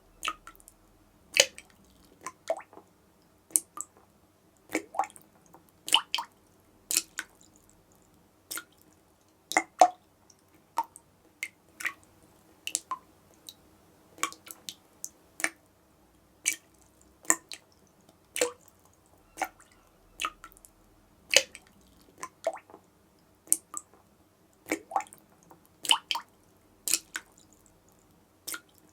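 Dripping tap: single water drops landing one after another at an uneven pace, about one to two a second, each a short sharp drip.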